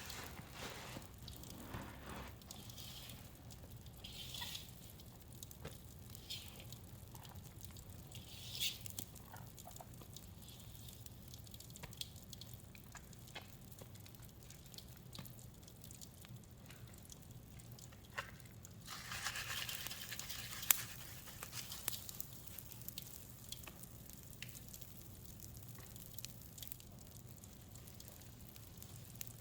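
Faint wet squelching and dripping as a soaked sponge full of blue-dyed pine cleaner and oil soap is squeezed, with scattered small pops from bath crackles. About nineteen seconds in, more bath crackles go into the liquid and set off a denser burst of crackling and fizzing for a few seconds.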